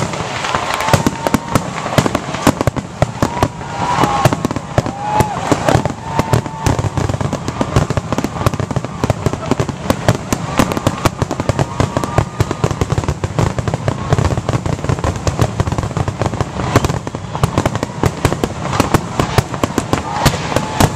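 Aerial fireworks display: a dense, unbroken barrage of shell bursts, bangs and crackle, many per second. A few high whistles rise and fall in the first several seconds and again about ten seconds in.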